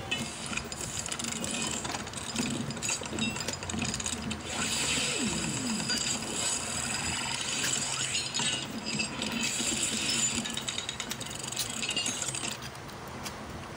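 Plastic Rhinox transforming toy being twisted and folded by hand: its joints and parts click and scrape in a dense run of small clicks, which dies away near the end.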